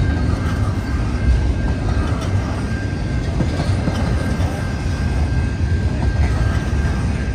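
CN double-stack intermodal freight train rolling past, its container cars' wheels rumbling steadily on the rails, with a faint steady high whine through most of it.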